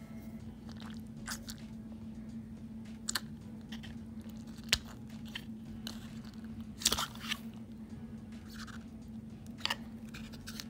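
A thin metal tool clicking and scraping against the base of a snow globe as its stopper is pushed back into the opening. There are scattered sharp clicks and short scrapes, the sharpest about halfway through and a quick cluster a little after, over a steady low hum.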